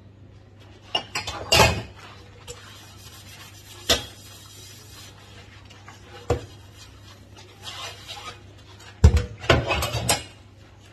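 Dishes and utensils clinking and knocking as they are handled during washing-up at a kitchen sink: a few separate knocks, then a busier run of clatter about nine seconds in, over a faint low hum.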